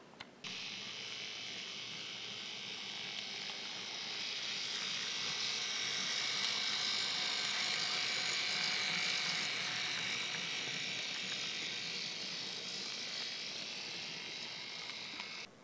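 Hobbytrain N scale BR 182 Taurus model locomotive running on its track: a steady small electric-motor buzz with wheel noise. It starts about half a second in, swells louder toward the middle and eases off again before stopping near the end.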